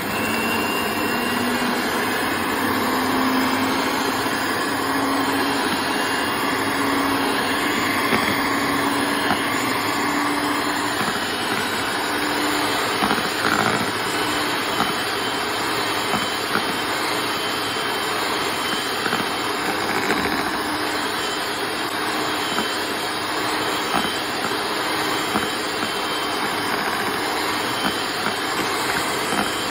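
Kenwood electric hand mixer running, its beaters whipping a thick cream-and-sugar mixture: a steady motor whir with a low hum that rises slightly in pitch over the first dozen seconds, and scattered light clicks.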